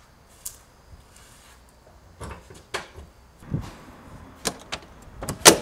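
Porsche Boxster (987) soft top being closed and latched by hand: a run of plastic and metal clicks and knocks from the top's frame and the latch at the windscreen header, a few with a dull thud, ending in a loud sharp clack as the latch engages near the end.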